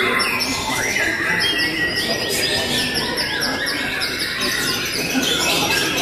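Several white-rumped shamas (murai batu) singing at once in competition: a dense, unbroken run of quick whistles and falling chirps overlapping one another.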